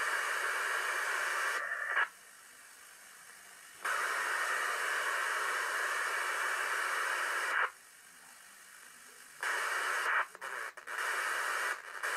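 Hiss of a 2-metre FM amateur radio receiver with no station talking. Loud stretches of static, about two and about four seconds long, switch on and off abruptly with quieter hiss between them, and break into short choppy bursts near the end.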